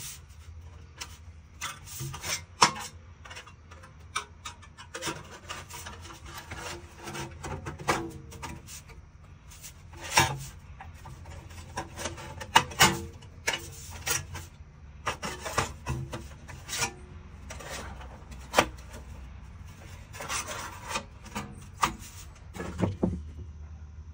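Thin painted sheet metal being handled and bent by hand into a box-shaped chimney cap: irregular sharp clicks, snaps and pops of the flexing metal, with scraping rubs against the bench. A steady low hum runs underneath.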